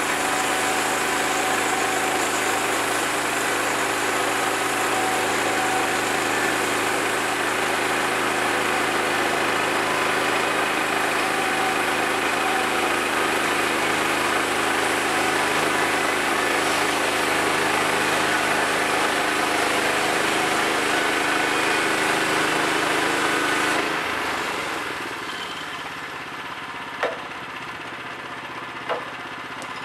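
Gasoline engine of a Woodland Mills portable bandsaw mill running steadily while its band blade cuts through a Douglas fir log. About three-quarters of the way through the engine sound drops to a quieter idle, and near the end there are two sharp knocks as a cut slab is handled.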